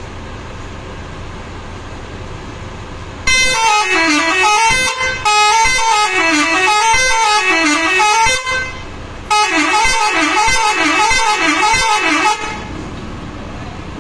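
Bus telolet horn with eight modules playing its multi-tone melody, the pitches swinging up and down, in two bursts: about five seconds, a short break, then about three seconds more.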